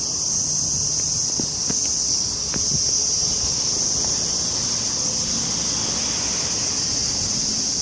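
Steady high-pitched drone of a chorus of summer insects, unbroken throughout, with a few faint clicks.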